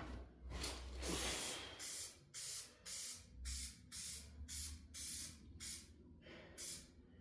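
Yellow spray paint hissing out of the nozzle in short bursts, about two a second, each cut off quickly before the next.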